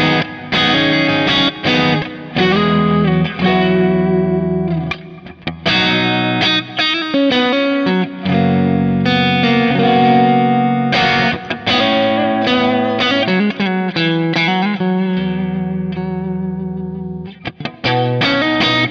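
Stratocaster-style electric guitar played through a modeled Bad Cat Hot Cat 40 amp tone. It plays overdriven chords and riffs with held notes, with short breaks about five seconds in and again near the end.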